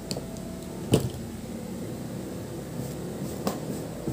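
Hand tools (pliers and scissors) handled on a tabletop: one sharp knock about a second in and lighter clicks near the end, over a steady low background hum.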